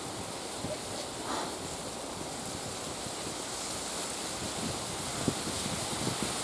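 Steady wind blowing over the microphone, with a few faint knocks.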